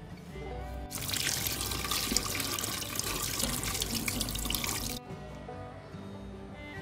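Tap water running over a peeled santol in a stainless steel sink, for about four seconds: it starts about a second in and cuts off abruptly. Background music is heard before and after it.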